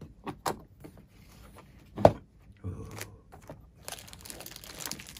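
Latches and lid of a small aluminium carry case clicking and knocking as it is opened, the loudest knock about two seconds in. From about four seconds, a plastic bag crinkling as the wrapped item inside is handled.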